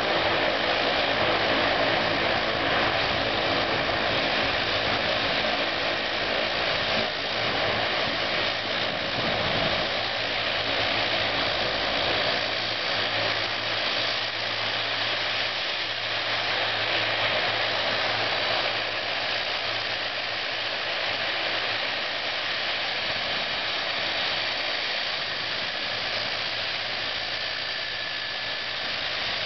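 Twin turboprop engines of a FedEx Feeder ATR 42 running at taxi power: a steady propeller drone with a hissing turbine whine.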